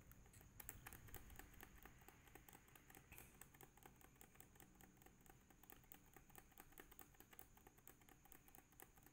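Faint, quick, regular clicking of keys being pressed over and over on a Lenovo B40-80 laptop keyboard, several presses a second, beginning about half a second in.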